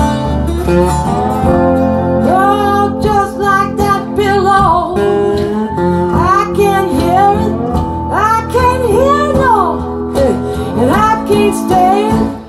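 Slow acoustic-guitar music with no lyrics: plucked guitar over steady low bass notes, with a lead melody that bends and slides in pitch. It drops away sharply at the very end.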